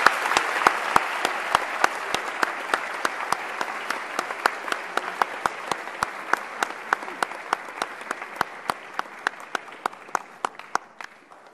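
Audience applauding, with one person close by clapping steadily at about three to four claps a second; the applause gradually dies away.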